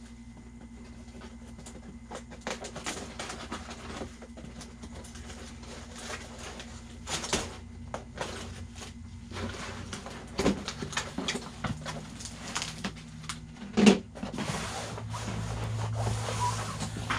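A cardboard shipping box being opened by hand: irregular rustling, scraping and tearing of cardboard and packing, with a sharp knock about 14 seconds in. A steady low hum runs underneath.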